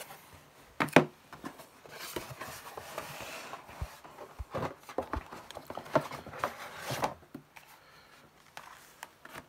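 A software box and its manuals being handled: a sharp knock about a second in, a stretch of rustling paper and cardboard, then a run of small clicks and taps.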